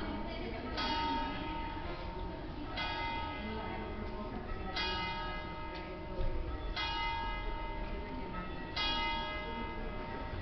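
Church bells of a five-bell ring in E-flat cast by Michele Comerio in 1841, rung in full swing (distesa). A strike comes about every two seconds, each ringing on with many overtones.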